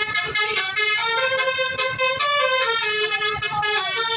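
A bus's Basuri 'telolet' multi-tone musical horn, playing a melody of held notes that step from one pitch to the next.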